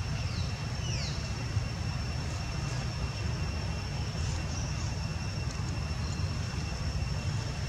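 Outdoor ambience: a steady low rumble with a thin, steady high-pitched whine over it. Two short falling whistles come in the first second or so.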